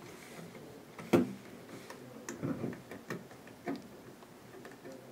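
Small clicks and taps of fingers handling stacked circuit boards while turning a small screw in by hand. The sharpest click comes about a second in, followed by a scatter of lighter ticks.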